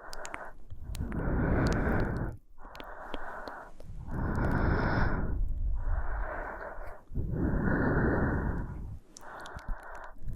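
A woman breathing slowly and steadily close to the microphone, in and out in even breaths of about a second and a half each with short pauses between.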